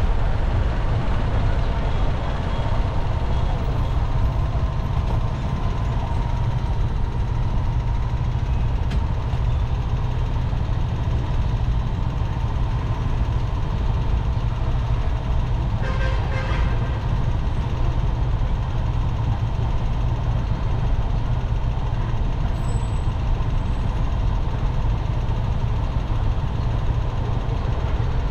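Road and traffic noise of a car driving along a city street: a steady low rumble of tyres and engine. A short higher-pitched sound from another vehicle cuts in about halfway through.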